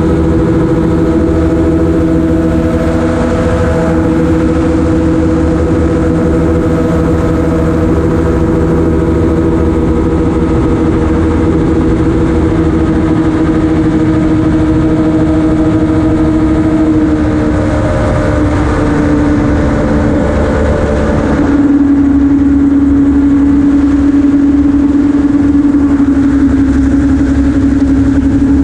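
Amphibious gyroplane's engine and propeller running steadily in cruising flight, a loud, even drone. About three-quarters of the way through, the note drops slightly lower and gets a little louder, as with a change of power setting.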